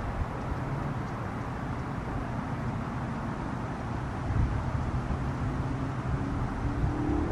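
Steady outdoor background noise: a low rumble with hiss above it. A faint hum rises slightly in pitch near the end.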